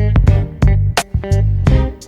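Background music: a funky groove with plucked guitar, bass and a steady drum beat.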